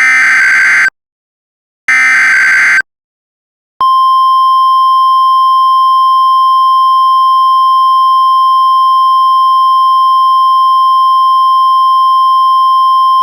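Emergency alert broadcast tones for a tornado warning. First come two short, buzzy digital SAME header bursts about two seconds apart. Then a single steady high-pitched alert tone, the NOAA Weather Radio 1050 Hz warning tone, holds for about ten seconds and cuts off abruptly.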